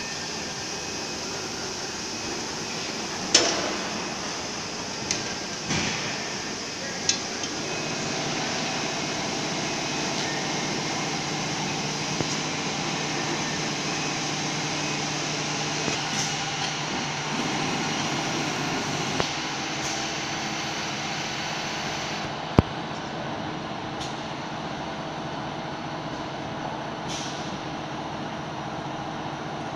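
Woodworking CNC machining center running, with its automatic panel feeding at work. A steady machine hum sets in after several seconds, broken by several sharp clunks and short hisses, and one sharp click near the end.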